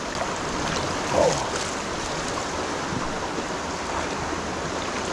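Shallow creek water running steadily over rocks and riffles. About a second in there is a short, brief human voice sound.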